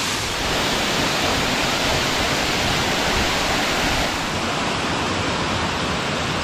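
Waterfall cascading over rock ledges into a creek: a steady rush of falling water, turning slightly duller about four seconds in.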